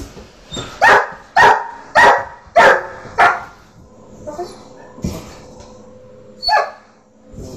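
A dog barking: five barks at about two a second, then a single bark near the end.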